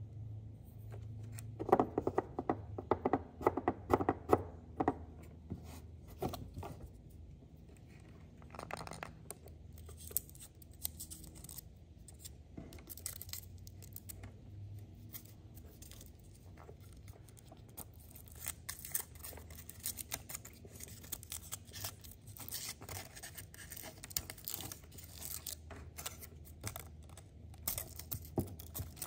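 Foil wrapper of a chocolate egg being crinkled and peeled off by hand, a dense fine crackling that gets busier toward the end. About two seconds in there is a short run of sharper taps and knocks.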